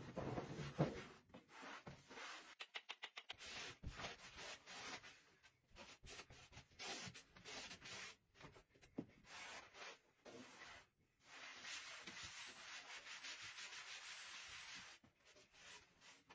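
Hand scrubbing and wiping hard surfaces, a rubbing hiss in strokes. About three seconds in comes a quick back-and-forth run of about eight strokes a second, and near the end a longer unbroken rub of about four seconds.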